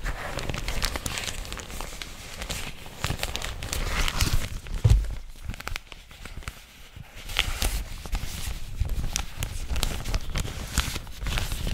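Frosted plastic zip-top packaging bag crinkled, squeezed and rubbed in the hands close to the microphone: a continuous dense crackle, with a low bump against the microphone about five seconds in.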